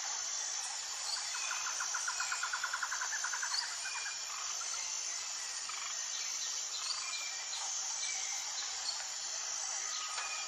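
Tropical jungle ambience: a steady high drone of insects with birds calling over it. About a second in, a bird gives a rapid stuttering trill lasting about two seconds, and short chirps and whistles come and go throughout.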